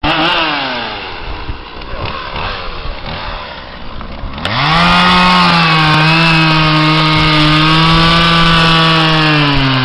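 Two-stroke chainsaw engine slowing off throttle and running unevenly at low speed. About four and a half seconds in it is revved up sharply and held at a steady high speed, easing off slightly near the end.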